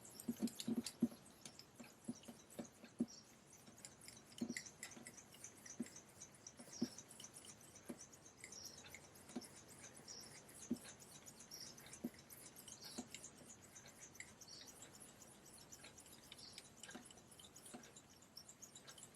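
Straight razor being stroked back and forth on a wet Japanese natural finishing waterstone without slurry: faint scraping strokes with a light tick at each stroke, coming about once a second and growing fainter toward the end.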